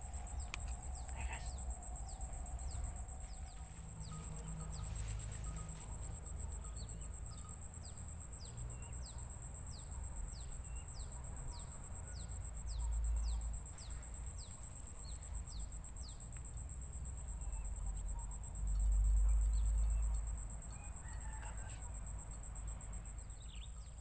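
Rural outdoor ambience: a bird repeating short descending chirps about twice a second for some ten seconds, over a steady high-pitched hum and a low rumble that swells briefly twice.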